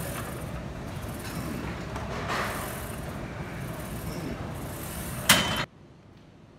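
Steady rushing noise of a gym room, with one sharp clank about five seconds in; just after it the noise drops suddenly to quiet room tone.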